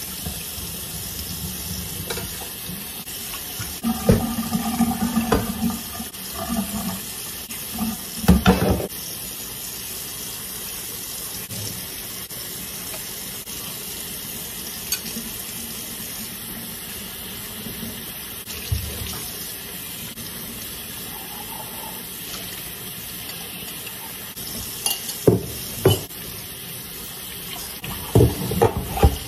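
Kitchen tap running steadily into a stainless steel sink during dishwashing, with knocks and clatters of dishes and a pot lid being handled in the sink, in bunches a few seconds in and again near the end.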